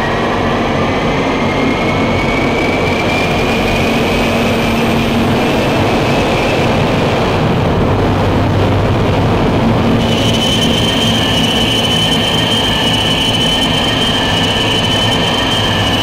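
Experimental ambient soundtrack: a dense, loud noise drone with a thin whining tone that slowly rises in pitch and fades, then a higher whine that comes in about ten seconds in and holds.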